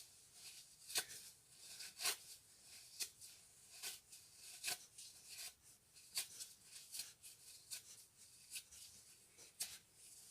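A tissue being torn into small pieces by hand: a run of short, sharp paper rips, the strongest about once a second with fainter ones in between.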